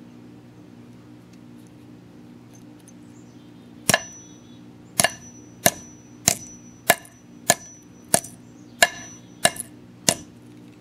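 Hammer blows flattening a copper-pipe cable lug on a concrete slab: about ten sharp metallic strikes, roughly one every 0.6 s, starting about four seconds in. The first strike rings briefly.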